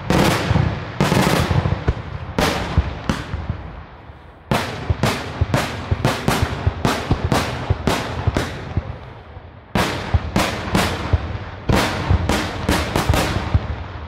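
Daytime fireworks display: aerial shells bursting in rapid, uneven volleys of sharp bangs, each trailing a brief echo. The barrage eases off briefly about four seconds in and again near ten seconds, then resumes.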